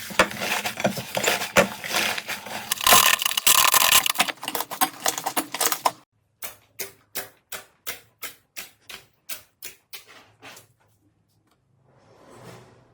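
Slime being squished and poked: dense crackling and popping for about six seconds, then a run of evenly spaced clicks, three or four a second, that fade out.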